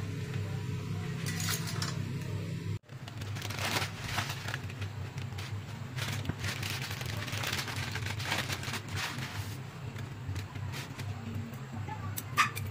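Pot of broth boiling hard on a gas burner, bubbling and crackling over a steady low hum. A couple of sharp clicks near the end.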